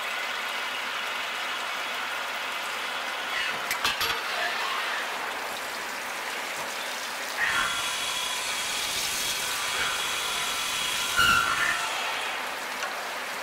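Automatic valve-lifter drilling and chamfering machine running its cycle, with cutting coolant spraying and splashing over the work. A few sharp mechanical clicks come about four seconds in. A hiss starts about halfway through, and the loudest knock comes near the end.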